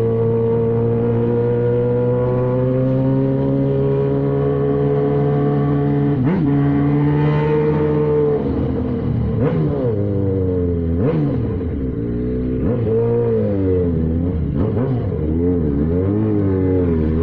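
Yamaha XJ6 600's inline-four engine with a Jeskap aftermarket exhaust, running under way. It holds a steady note at first, then from about halfway it rises and falls again and again as the throttle is opened and closed.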